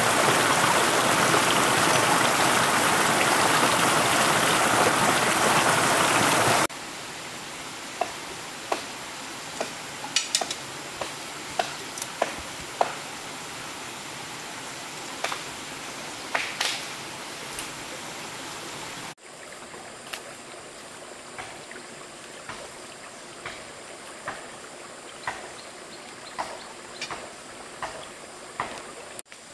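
Steady rushing water, like a stream, for the first several seconds. The sound then changes abruptly to a quieter background with scattered sharp clicks and knocks, and later to fainter ticks about once a second.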